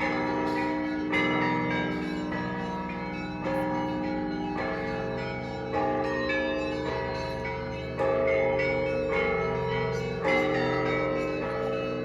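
Russian Orthodox bell ringing on a set of seventeen monastery bells played by one ringer. Many bells of different pitches ring on together under a stream of fresh strikes, with a louder stroke roughly every two and a half seconds.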